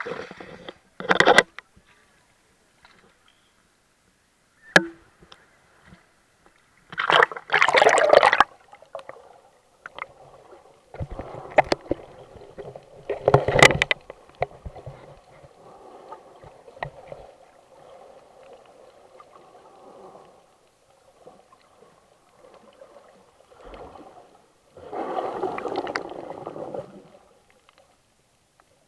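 Muffled splashing and gurgling of water heard through an underwater camera: several loud splashes, the loudest a long one about seven to eight seconds in and a sharp one about thirteen seconds in, with stretches of low bubbling between them.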